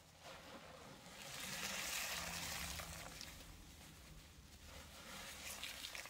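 Wet cleaning-powder paste being squished and squeezed by hand: a soft, faint wet hiss that swells about a second in and eases off, with a few small crackles near the end.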